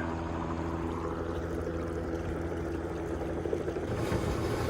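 Truck-mounted carpet-cleaning unit, driven off the truck's engine, running with a steady hum while its vacuum sucks water out of a pond, with a watery rushing over it. The hum changes about four seconds in.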